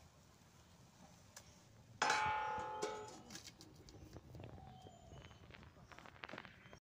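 A stainless-steel plate is set down as a lid on an iron wok: a metallic clang about two seconds in that rings and fades over about a second, with a lighter knock just after and a few faint clinks.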